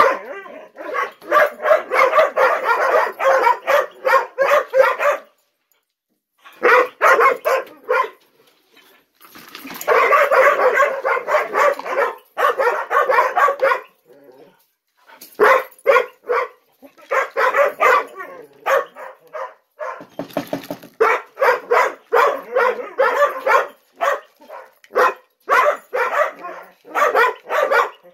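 Gollie (golden retriever–collie cross) puppies barking and yipping in rapid, overlapping runs broken by a few brief pauses: demand barking while they wait to be fed.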